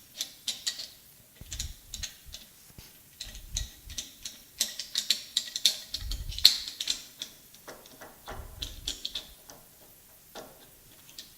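Irregular metal clicks, clinks and a few soft knocks as a drum sander is mounted and tightened in a lathe chuck.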